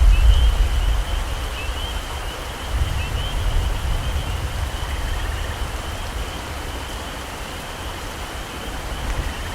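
Heavy rain falling steadily in a tropical forest, with a deep low rumble that swells near the start and again about three seconds in. A steady high-pitched animal chorus with short repeated chirps runs over the rain.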